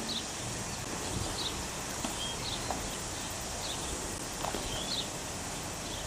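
Small birds chirping outdoors: short high calls repeating about once a second over steady open-air background noise.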